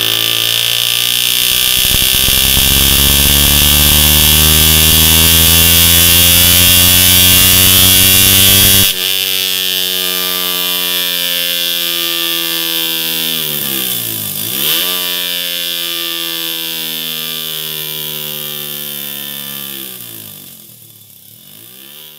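Suzuki GSX-R 125's single-cylinder four-stroke engine through a MIVV MK3 slip-on exhaust, revving: the pitch climbs steadily for about nine seconds, then the throttle is shut abruptly and the revs wind down slowly, with two brief dips in pitch, fading out near the end.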